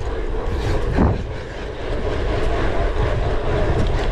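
Steady wind rumble on the microphone of a cyclocross rider under way, with a short falling sound about a second in.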